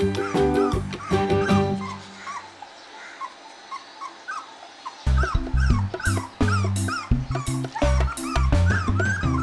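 A puppy whimpering and crying in many short, high-pitched cries, several a second, calling for its mother. Background music plays under it, dropping out for about three seconds in the middle.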